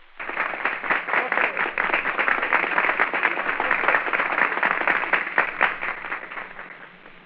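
Crowd applauding, a dense patter of clapping that fades away near the end, with the narrow, thin sound of an early Vitaphone sound-on-disc recording.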